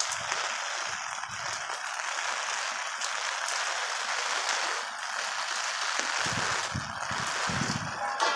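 Torrential rain pouring down in a steady, dense hiss, with a few sharp ticks of single drops. Some low rumbling comes in about six seconds in.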